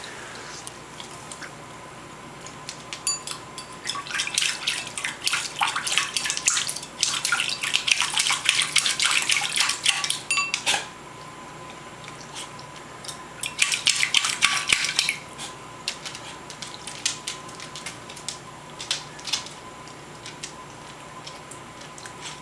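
A corgi digging with its front paws in a full water bowl: rapid splashing and scraping, with the bowl clattering on the tile floor. There is a long bout, then a shorter one about two thirds of the way through.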